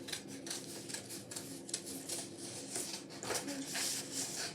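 Paper being handled at close range: a run of quick, short rustles and scrapes.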